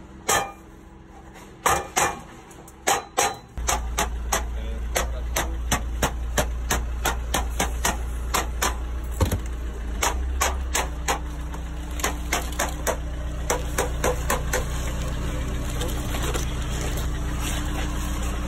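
Hammer tapping metal counter flashing into the cut mortar joint of a brick chimney: a few blows, then a steady run of about two taps a second that thins out near the end. A steady engine hum starts about three and a half seconds in.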